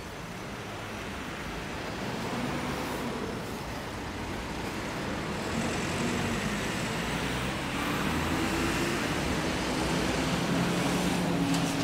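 Road traffic on a city street, with motor vehicles passing close by and the noise growing steadily louder.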